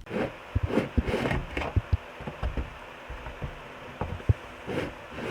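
Irregular soft knocks and bumps with some rustling in between.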